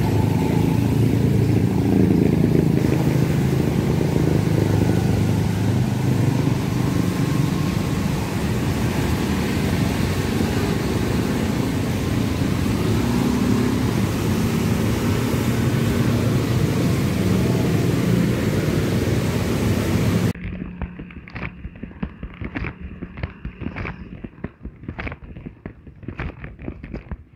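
Steady motor-vehicle noise, a motorcycle engine running amid street noise. About twenty seconds in it cuts off abruptly to a quieter stretch of rapid, irregular sharp knocks.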